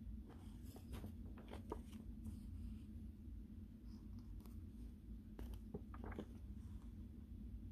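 Pages of a paperback picture book being turned and handled: faint paper rustles and light taps, in a cluster about a second in and another around five to six seconds in, over a low steady hum.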